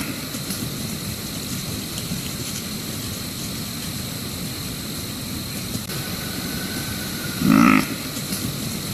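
White-tailed deer buck giving a single short, low grunt near the end, over the steady hiss of a night-time field recording.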